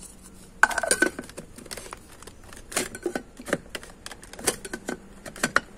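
Stainless grinding bowl and clear plastic lid being set in place on a Hamilton Beach electric coffee grinder: a run of irregular clicks, taps and light rattles.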